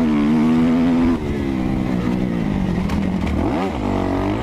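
Kawasaki KX250F's four-stroke single-cylinder engine pulling steadily as the motocross bike is ridden along a dirt track, heard from a helmet camera. The pitch eases down a little after about a second, then drops and climbs again near the end as the throttle is rolled off and back on.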